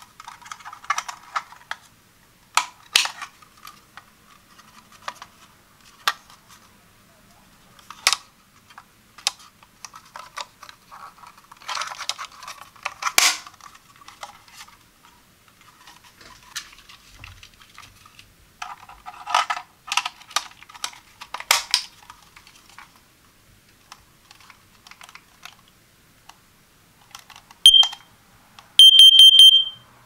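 The hard plastic case of a First Alert CO605 carbon monoxide alarm is handled and turned over, giving scattered sharp clicks and taps. Near the end the alarm's beeper gives a short high beep, then a longer one about a second later, as the unit powers up on being plugged into an outlet.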